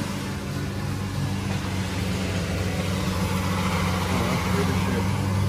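Pickup truck's engine idling steadily, a low even hum that gets a little louder near the end.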